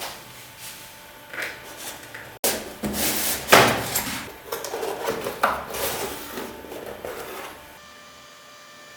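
Keyboard packaging being handled during unboxing: a run of irregular sliding and rubbing sounds, like a box or its lid sliding and cardboard rubbing. The sounds stop about eight seconds in, leaving a faint steady hum.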